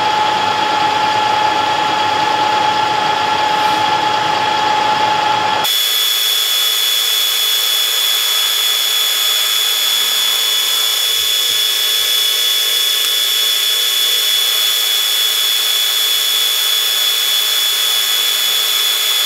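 Metal lathe running and turning down a pin's shank, a steady machine whine and cutting noise. About six seconds in the sound changes abruptly: the lower hum drops away and a high whine remains.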